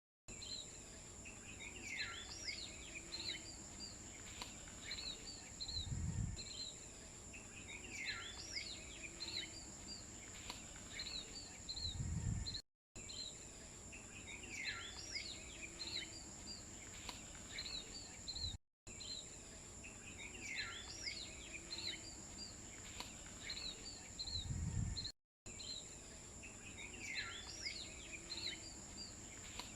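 Birds chirping over a steady high-pitched drone, with a few dull low thumps; the same short stretch seems to repeat several times with brief dropouts between.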